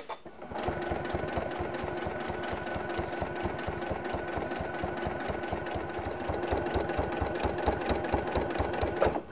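Janome CM17 sewing machine running a straight stitch, sewing a binding down along a quilt's edge. It runs at a steady speed: needle strokes in a fast, even rhythm over a steady motor hum. It starts about half a second in and stops just before the end.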